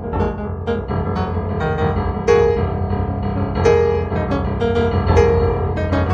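Background solo piano music: a quick succession of notes and chords over held low notes.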